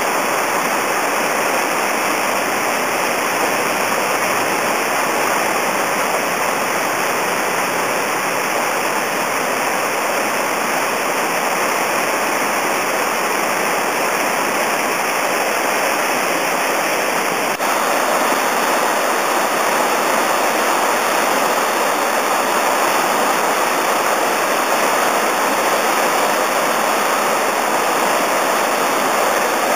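Whitewater rushing through a river hole: a steady, dense noise of churning water that steps up slightly in loudness about two-thirds of the way through.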